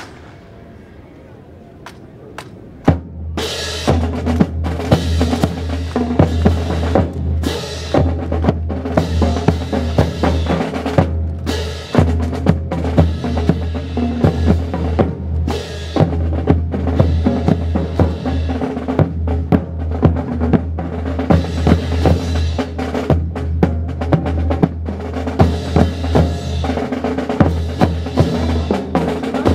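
Marching music with a snare and bass drum beat, starting about three seconds in after a quieter opening, then running loud and steady with many sharp drum strokes.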